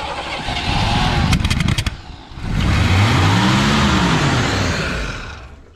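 1974 Chevy pickup engine cranking and sputtering with a quick run of sharp pops, then catching and revving up and back down before it dies near the end. The ignition timing is being set and is judged too far advanced.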